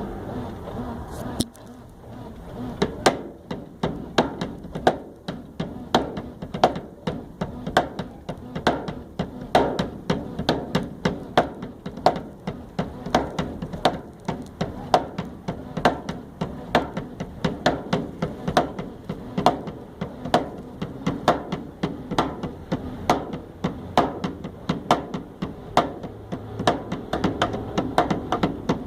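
Hand-played percussion beat of sharp taps and knocks, several a second with louder accents, starting a second or two in, over the low hum of a running washing machine.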